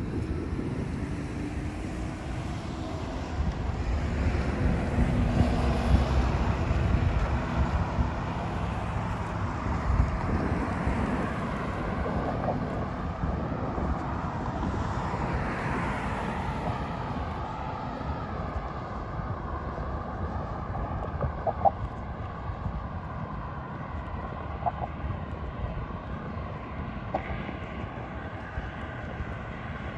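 Outdoor wind noise on the microphone over a distant engine drone that swells in the first third and then settles into a steady hum. A few brief high blips come in the second half.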